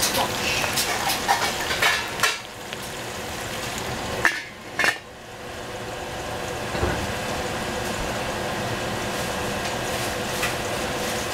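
Steady sizzling in a stainless steel pot of cut eggplant and cucumber, with clicks of the pieces being moved, then a metal pot lid set down with two clanks about four and a half seconds in.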